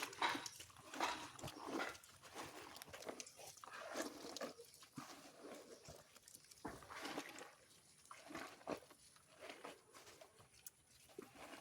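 Hands crushing and mixing wet chicken feed of mashed fruit and leaves: soft, irregular squishing and rustling.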